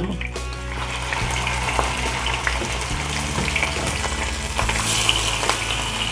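Hilsa fish steaks frying in hot oil in a nonstick frying pan as more pieces are laid in: a steady sizzling hiss with scattered spattering pops.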